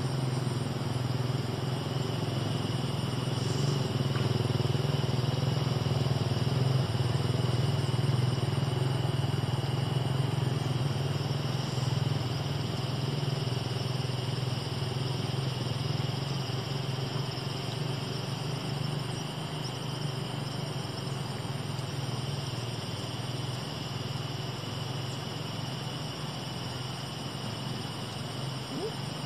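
A small engine running steadily, a low drone that swells slightly and then eases off a little.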